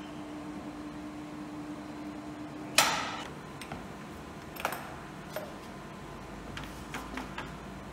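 A steady low hum, then about three seconds in a sharp clank with a short ring, followed by a few lighter knocks and taps as a truck's old radiator and intercooler assembly is handled on hoist chains.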